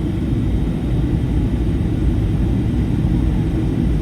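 Inside the cabin of a Boeing 757-300 on final approach: a steady low rumble from its Rolls-Royce RB211 engines and the airflow.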